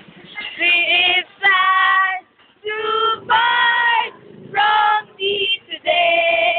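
Young women singing loudly in a string of short held notes, with brief breaks between the phrases.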